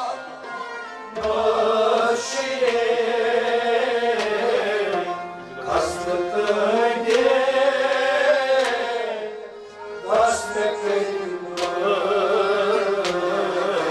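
Kashmiri folk music: harmonium and rababs accompany a male singer's long, bending melodic phrases, with sharp drum strokes here and there. The phrase breaks off briefly twice before a new one starts about ten seconds in.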